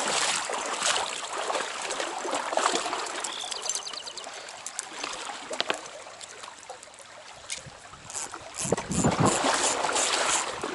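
Trout stream water running and trickling, with scattered clicks and rustles and a louder stretch of knocks and rustling near the end.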